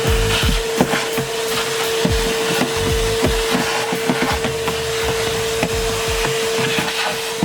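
A vacuum cleaner running with a steady whine, sucking up debris, with frequent irregular knocks and rattles from the nozzle and debris against the car's interior.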